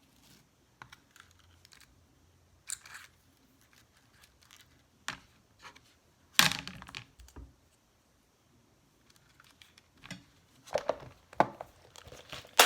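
Scattered clicks and knocks of small plastic press-on nail tips and their case being handled and set down on a table. The loudest knock comes about halfway through, then a pause, then a quick run of clicks near the end.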